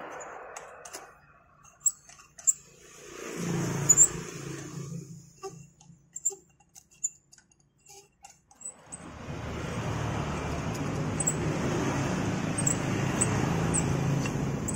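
A thread tap in a drill chuck being driven into a scooter's exhaust-mount bolt hole to recut stripped threads: a short run of steady rumbling, then a longer steady run from about nine seconds in, with scattered metallic clicks between the runs.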